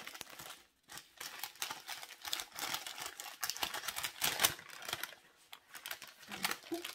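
Rustling and quick clicking crackles of a small packaged item being unwrapped by hand, loudest about four and a half seconds in.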